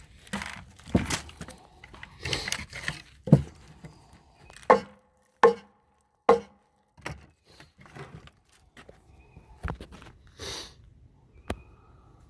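A series of irregular knocks and clatters, several of them with a short ringing tone, the loudest in the middle of the stretch.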